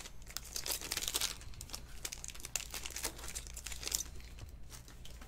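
Foil wrapper of a Topps Chrome Sapphire card pack crinkling and tearing as it is ripped open and the cards are slid out. It is a run of sharp crackles, loudest about a second in and again near four seconds in.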